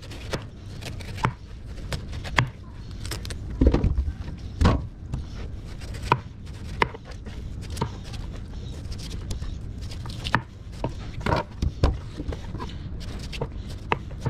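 Kitchen knife slicing the rind off a watermelon and knocking on a plastic cutting board: irregular cuts and taps, with a few heavier thumps near the middle and again later, over a steady low hum.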